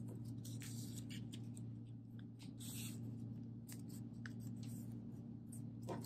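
A strip of paper being folded into thirds and creased by hand against a tabletop: soft, scattered rustles and scrapes of paper.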